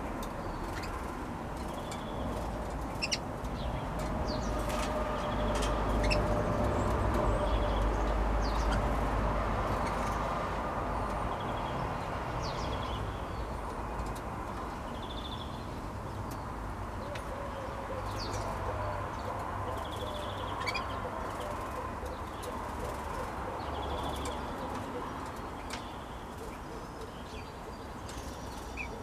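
Young female canaries in a cage giving short, scattered chirps, with light clicks and wing flutters as they hop between perches.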